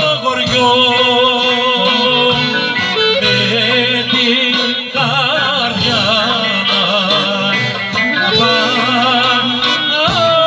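Live Greek folk band playing through a PA: a clarinet winds through an ornamented, wavering melody while a man sings, backed by drums and a plucked string instrument.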